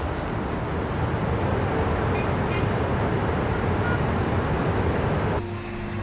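Steady road traffic noise, a constant rumble of passing vehicles, which cuts off abruptly about five seconds in as soft music begins.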